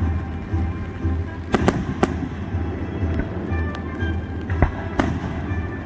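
Aerial fireworks shells bursting with sharp bangs: a quick pair about a second and a half in, another near two seconds, and two more near the end.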